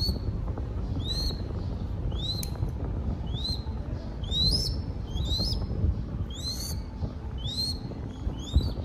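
Crested goshawk chick calling over and over: about a dozen short, high cheeps, each rising then falling, one or two a second. These are its begging calls as it is hand-fed.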